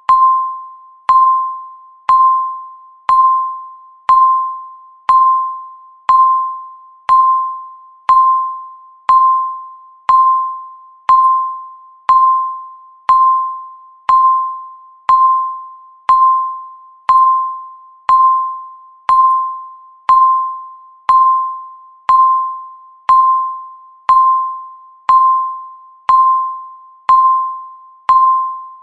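Countdown timer's electronic beep sounding once every second: a single mid-pitched tone that starts sharply and fades away before the next, ticking off the seconds.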